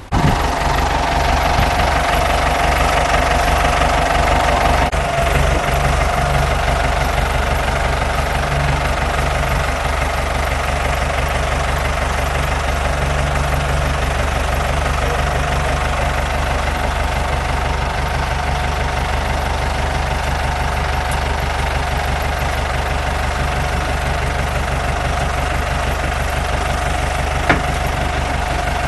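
A motor vehicle engine running steadily at an even speed, with a constant whine over a low rumble.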